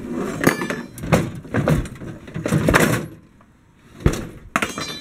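Metal tools and wooden handles knocking and clattering together as hands rummage through a wooden toolbox, followed near the end by a knock and a couple of short ringing metal clinks as a metal grinder part is pulled out.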